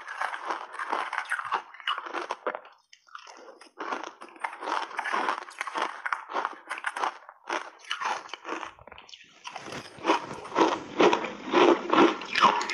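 Close-mic crunching and chewing of ice chunks coated in matcha tea and milk powder: rapid, crisp crunches, with a short lull about three seconds in and louder, heavier crunching over the last few seconds.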